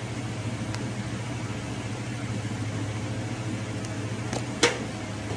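A steady low machine hum fills the room. Over it come a few faint clicks and one sharper crack about four and a half seconds in, as fingers pry apart the shell of a cooked oyster.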